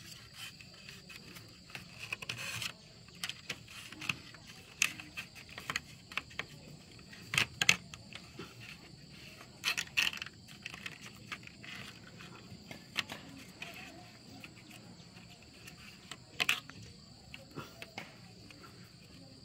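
Steady high-pitched insect drone, with irregular knocks and clicks over it; a few of them are louder.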